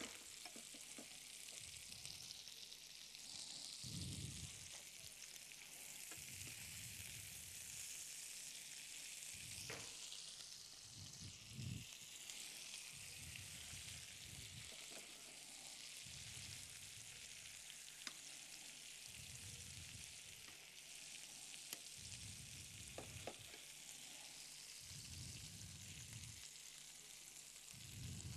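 Meat frying in butter in a frying pan: saddle fillets and cling-film-wrapped rolls giving a faint, steady sizzle, with scattered low thuds and a few light clicks as the pieces are handled.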